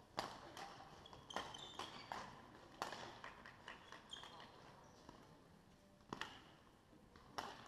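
Badminton rackets striking shuttlecocks in a large sports hall: sharp, echoing clicks at irregular intervals, about nine in all, from rallies on several courts.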